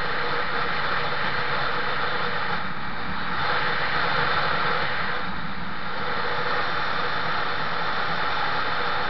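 Steady wind rushing over the microphone of a camera carried on a moving vehicle, swelling slightly around the middle, with a faint low engine hum beneath it.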